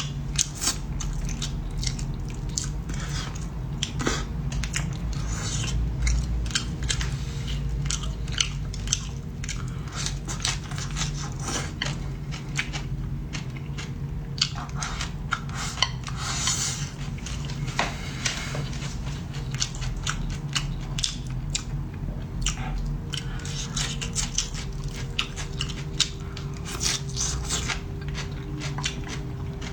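A person chewing and biting food close to the microphone, with many short crunchy clicks, over a steady low hum.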